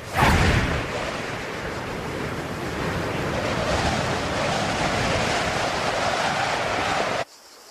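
Steady rushing of river water with wind rush, as if skimming low over it; a brief loud whoosh swells just after the start, and the roar cuts off abruptly near the end.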